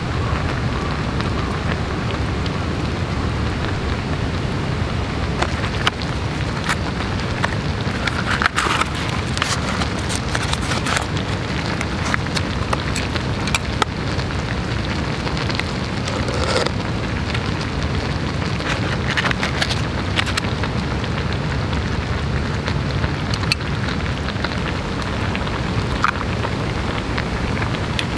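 Steady hiss and patter of light rain, with scattered clicks and a few knocks from cooking utensils at the pot.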